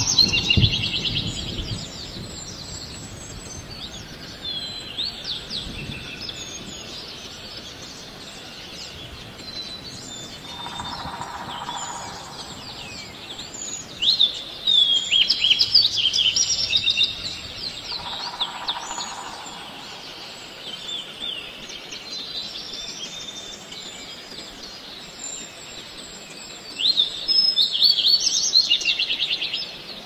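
Birds chirping in bursts of quick, high chirps, loudest near the start, in the middle and near the end, over a steady outdoor background hiss.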